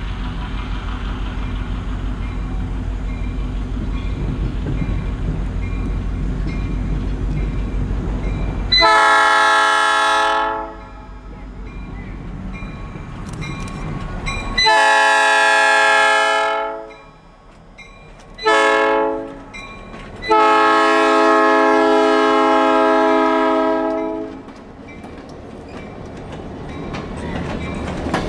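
Diesel locomotive air horn blowing the grade-crossing signal: two long blasts, a short one and a final long one, over the low running of the approaching engine. Near the end the passenger cars roll past with rising wheel noise.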